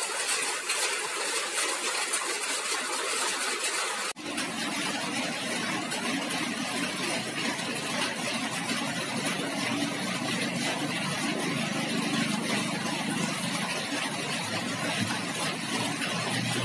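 Steady street traffic noise with a vehicle engine running close by, its low hum filling in after a brief sudden dropout about four seconds in.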